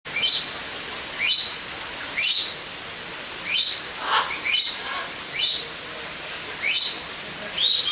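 A parrot calling over and over: short, rising, high calls about once a second.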